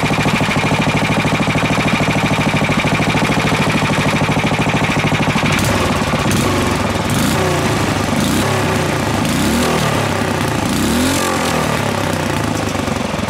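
Single-cylinder horizontal-shaft small gas engine in a go-kart running, freshly brought back to life after a tune-up. It runs at a steady speed for the first half; then, from about six seconds in, its speed rises and falls repeatedly as the throttle is worked by hand at the carburetor.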